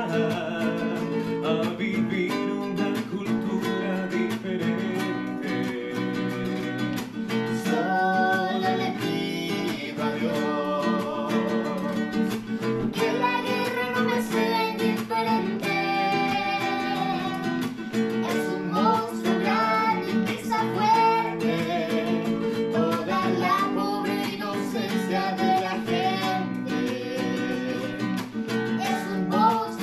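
Two acoustic guitars strummed together in an easy rhythm while a young girl sings the melody.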